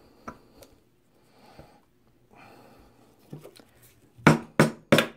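Brass handle pins being tapped into wooden knife scales with a hammer: a few faint handling knocks, then three sharp taps in quick succession, about three a second, near the end. The pins are a tight fit.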